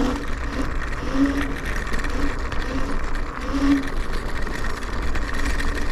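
Electric scooter riding along a rough track: a steady high motor whine under a low rumble of wind on the microphone, with short lower tonal blips every second or so.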